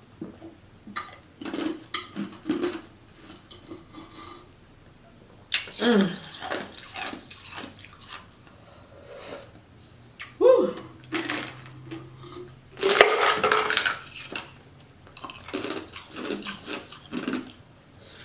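Close-miked drinking of ice water: gulps and swallows in several bouts, with wet mouth clicks and knocks from the cup. The longest bout comes about two-thirds of the way through.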